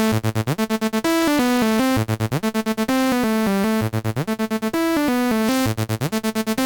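Electronic synth loop playing through tape-saturation processing with distortion added: bursts of rapid chopped chord stabs alternate with held chords, and a stepping melody repeats about every two seconds.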